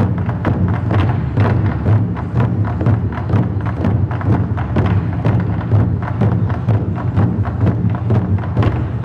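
Traditional Taiwanese gong-and-drum ensemble (drums and gongs) playing a fast, dense, unbroken beat.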